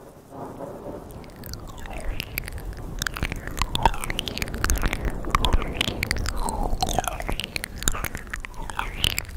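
ASMR mouth sounds: rapid wet clicks and lip smacks, growing denser after the first couple of seconds.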